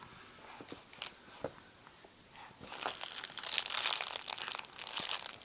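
A few soft clicks, then about halfway through a dense spell of crinkling and rustling that lasts about two and a half seconds.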